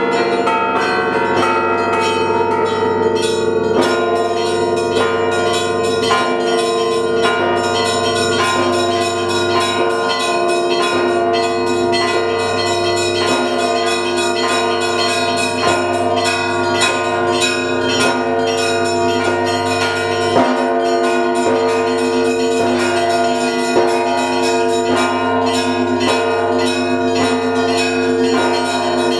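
Russian Orthodox bell ringing from the Trinity-Sergius Lavra belfry: many bells rung together in a continuous peal, quick strikes of the smaller bells over the sustained hum of the larger ones. This is the Paschal (Bright Week) ringing calling to the evening service.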